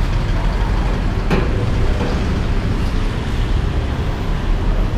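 Steady rumble of road traffic, with a single short click about a second in.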